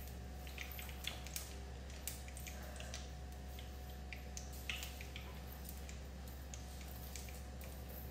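Ghee and oil heating in a kadai on a gas hob, giving faint, scattered crackles and pops, a few more of them in the first half.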